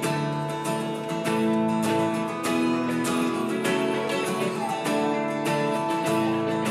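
Worship band playing a song's instrumental intro: steady strummed acoustic guitar over held keyboard chords.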